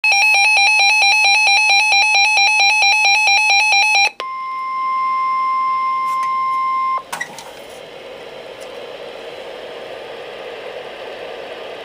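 Weather-alert radio receiver's loud, rapid electronic alarm beeping for about four seconds. It gives way to a steady single-pitch NOAA Weather Radio warning alarm tone for about three seconds, then steady radio hiss.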